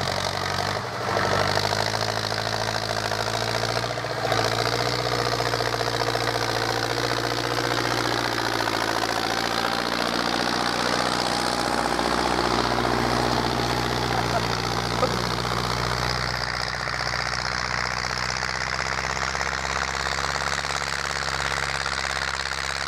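Belarus MTZ-82 tractor's four-cylinder diesel engine running steadily under load as it pulls a stubble cultivator through the soil.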